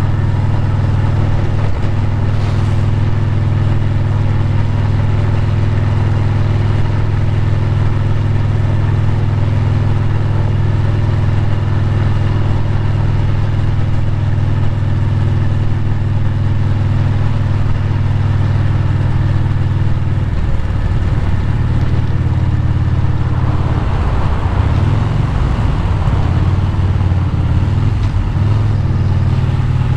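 Motorcycle engine running steadily at cruising speed, heard from the rider's seat. About twenty seconds in, the engine note shifts and wavers for the rest of the stretch.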